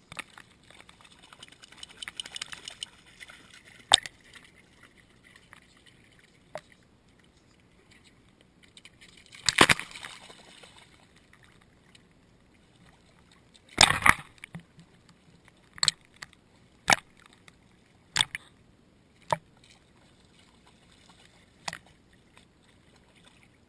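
Shallow seawater lapping and sloshing around a waterproof action-camera housing sitting at the waterline, with brief sharp splashes and knocks of water against it at irregular intervals, the loudest about ten and fourteen seconds in.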